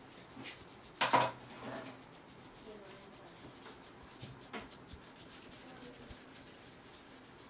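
Hands rubbing over a person's head and neck during a traditional Indian barber's head massage, with one sharp slapping hit about a second in and a lighter one near the middle.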